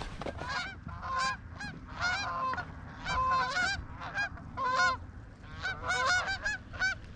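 Flock of Canada geese honking in flight: a rapid, irregular string of short honks, several birds calling over one another.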